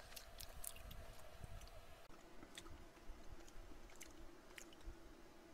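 Faint eating sounds: a person chewing, with a cluster of small clicks in the first second and a few scattered soft clicks after.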